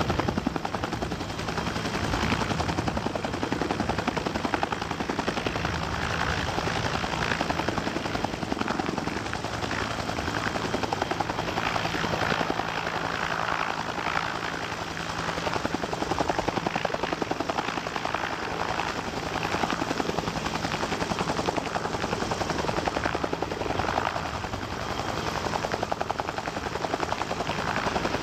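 Bell UH-1 Huey helicopters running close by, their main rotors beating in a fast, steady chop.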